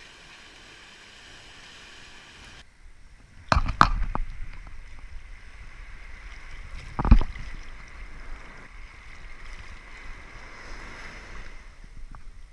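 Seawater washing and wind on the microphone, with two or three sharp knocks about three and a half seconds in and a louder thump about seven seconds in.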